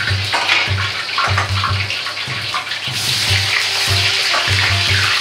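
Hot oil sizzling in an iron wok over a gas flame, with a ladle stirring through it; the hiss grows fuller and brighter about three seconds in. Background music with a low, steady beat runs underneath.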